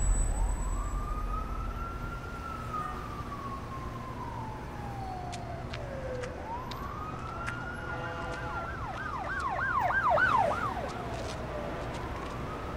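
Emergency vehicle siren wailing, its pitch rising and falling slowly, then a rapid yelp for about two seconds around nine seconds in before returning to the slow wail. A low rumble dies away over the first couple of seconds.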